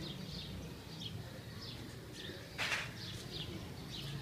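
Birds chirping repeatedly in short high notes over a low background hum, with one brief loud rush of noise about two and a half seconds in.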